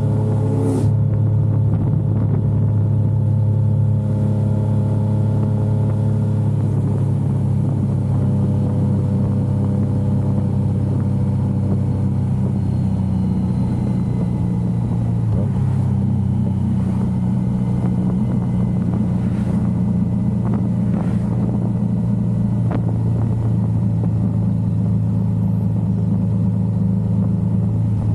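Yamaha XSR900's inline-three engine running steadily under way, its pitch shifting slightly a couple of times as the throttle changes.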